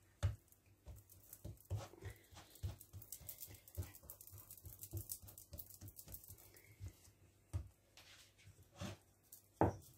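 Hands patting and pressing soft floured dough rounds onto a stack on a glass plate: faint, irregular soft pats and taps, a few a second.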